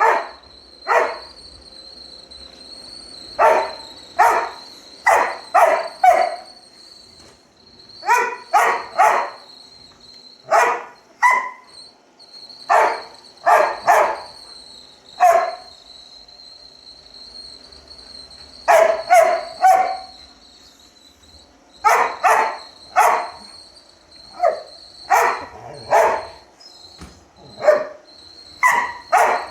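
Dog barking at a running robot vacuum cleaner: sharp barks in quick runs of two to four with short pauses between runs, over the vacuum's steady high whine.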